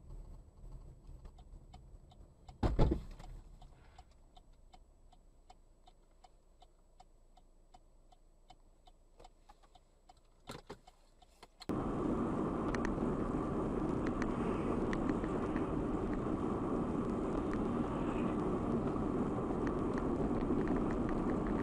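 Dashcam audio from inside a car: one loud thump about three seconds in, then faint, evenly spaced ticking. Just before the halfway point this gives way abruptly to the steady tyre and wind noise of a car driving on a highway.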